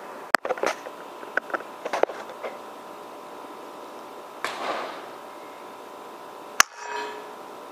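Two sharp cracks of a PCP air rifle firing, one just after the start and one near the end, with scattered lighter clicks between them.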